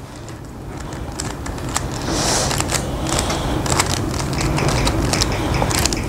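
Plastic Rubik's Cube being twisted quickly by hand: a fast, irregular run of clicks and clacks as the layers turn, over a low rubbing noise that grows louder.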